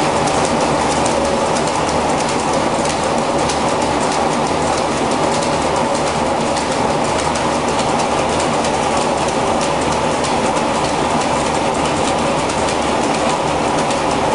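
Steam-driven textile mill machinery running: a loud, steady, dense clatter of rapid clicks that keeps an even pace throughout.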